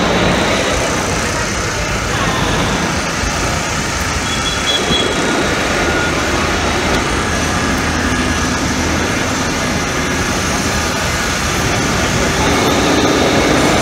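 Busy city street traffic: a steady mix of passing vehicle engines and road noise.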